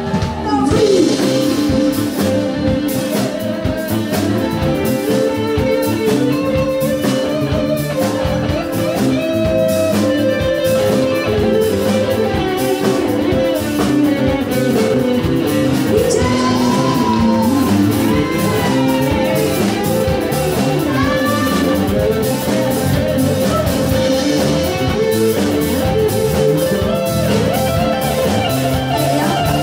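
Live band playing, with an electric guitar carrying the lead and several notes bent up and down over the drums about halfway through.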